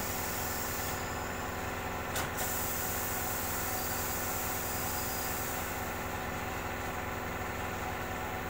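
Steady motor hum at a motorbike tyre-changing machine, with one short sharp clack about two seconds in.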